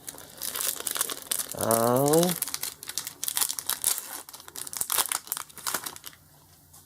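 Foil Pokémon trading-card booster pack wrappers crinkling and tearing as packs are ripped open, a dense run of quick crackles that stops about a second before the end.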